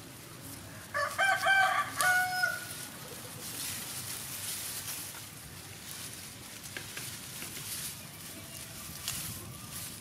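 A rooster crows once, starting about a second in and lasting under two seconds. After it come faint, scratchy rustles of lemongrass leaves being handled.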